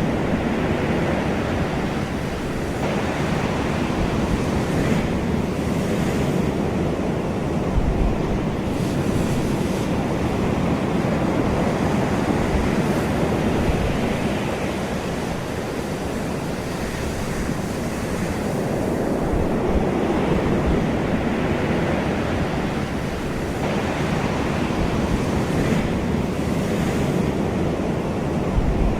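Ocean waves washing onto a shore in a continuous rushing surf that swells and ebbs every few seconds, with some wind noise on the microphone. The sound cuts off suddenly at the very end.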